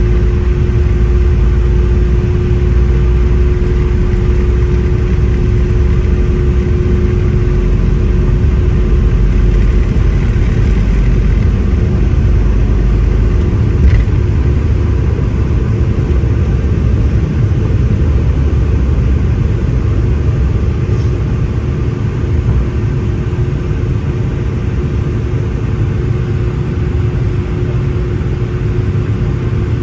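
Boeing 717's Rolls-Royce BR715 jet engines running: a loud, steady rumble with a constant hum above it. There is a single brief knock about halfway through.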